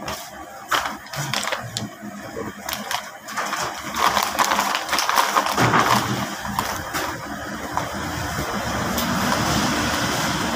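Foil packet crinkling and crackling as it is handled and opened, loudest about four to six seconds in, then giving way to a steady hiss.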